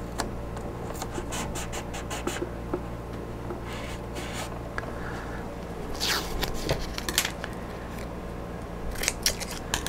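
Hands shifting and rubbing on a clear plastic model-airplane canopy with small scratches and clicks, then blue painter's tape being pulled off its roll with a brief ripping sound about six seconds in and again near the end. A steady low hum runs underneath.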